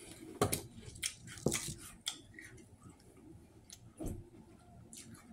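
Metal spoon clinking and scraping against a small plastic cup of Cinnamon Toast Crunch and milk, mixed with crunchy chewing of the cereal. Scattered short clicks and crackles, the louder ones in the first two seconds and another about four seconds in.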